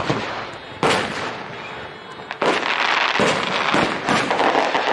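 Fireworks display: aerial shells bursting with sharp bangs, two about a second apart, then from about halfway a dense continuous crackling with more bangs mixed in.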